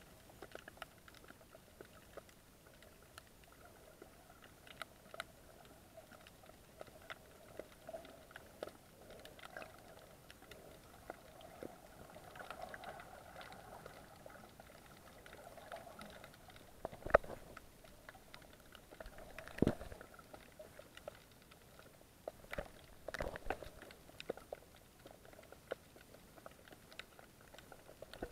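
Underwater sound: a faint steady crackle of small clicks, with three louder knocks in the second half.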